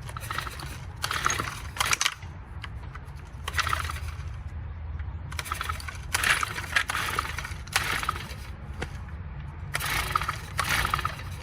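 Recoil pull-starter of a Honda 4-stroke string trimmer pulled over and over, a rasping ratchet-like whir with each pull. The engine is being cranked with the plug out to check for spark, so it does not fire.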